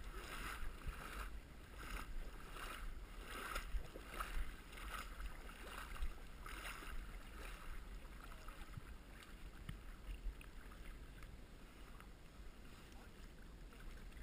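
Legs wading through shallow seawater, with a splash at each stride about every half second to a second; the splashes thin out after about seven seconds. A low wind rumble on the microphone runs underneath.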